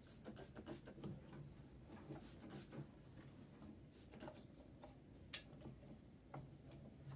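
Faint, scattered light clicks and taps of small parts being handled on a sewing machine during cleaning, with one sharper click about five seconds in.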